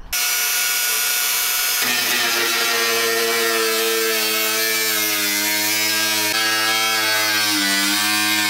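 Angle grinder cutting through the van's sheet-steel inner panel: a steady, high motor whine over a hiss of metal being cut, its pitch dipping briefly near the end as the disc takes more load.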